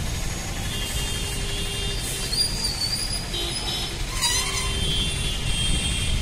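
Outdoor street noise: a steady low rumble with faint, thin high-pitched whistling tones coming and going above it.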